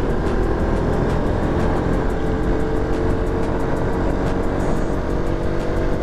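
Motorcycle riding in city traffic: the engine running steadily under a constant rush of wind noise on the GoPro microphone.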